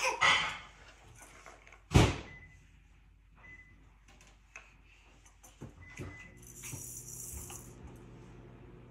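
Wooden toddler toys knocking and clacking as a toddler handles them: a sharp knock at the start and a loud clack about two seconds in, then light taps. From about seven seconds in there is a scratchy rustling.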